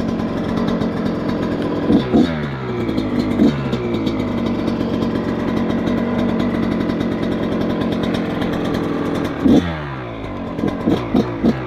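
Dirt bike engine running while being warmed up, mostly at a steady low idle. It is blipped three times: about two seconds in, a second and a half later, and near the end, with the revs falling back down after each.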